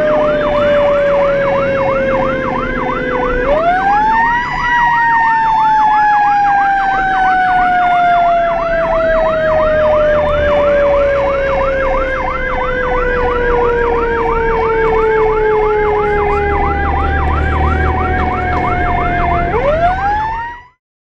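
Fire apparatus sirens while responding. A mechanical siren winds up quickly about three seconds in and again near the end, each time coasting slowly down in pitch, over an electronic siren sweeping rapidly up and down in a yelp. Engine and road rumble run underneath, and the sound cuts off suddenly near the end.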